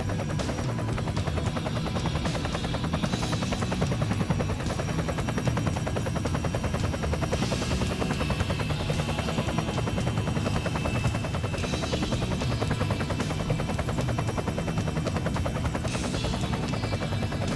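Walkera Dragonfly 4F200LM radio-controlled model helicopter in flight: its rotor and motor make a steady, fast chopping whir.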